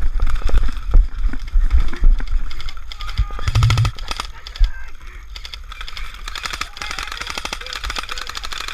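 Airsoft guns firing in rapid bursts of sharp clicks. Heavy low thumps sound through the first few seconds, the strongest about three and a half seconds in.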